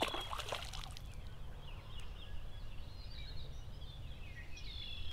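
Wild songbirds chirping and singing over a steady low outdoor rumble, with a falling whistled phrase at the start and again near the end. A brief rustling, splashy burst is heard right at the start.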